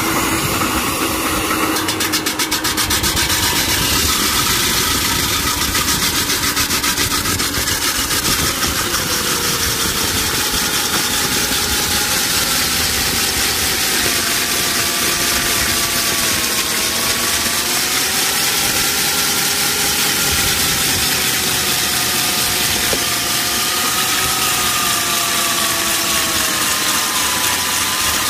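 Electric stand-mounted core drill with a large diamond core bit running under load, wet-cutting a post-sleeve hole down through an asphalt court. The motor whine is steady, its pitch wandering slowly up and down as the load on the bit changes.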